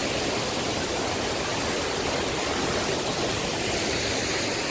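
Steady rush of a large waterfall, falling water heard as an even roar.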